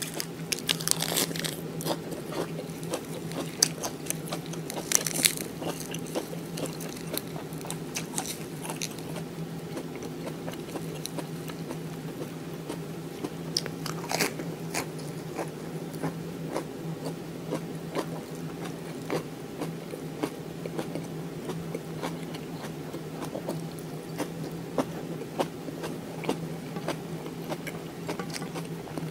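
Close-miked biting and chewing of a fresh green-leaf lettuce wrap: crisp crunches and crackles come thick in the first several seconds, then sparser chewing with occasional crackles. A steady low hum runs underneath.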